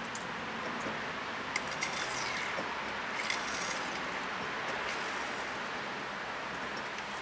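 Brake fluid and air hissing and sputtering in a few short bursts through an open brake bleeder screw during bleeding, over a steady background hum of traffic.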